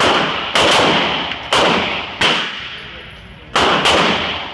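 Handgun shots fired at an indoor range: five shots at uneven intervals, the last two close together, each ringing out in a long echo off the range walls.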